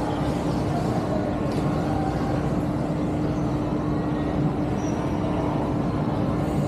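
Steady shopping-mall ambience: an even din through the atrium with a constant low hum.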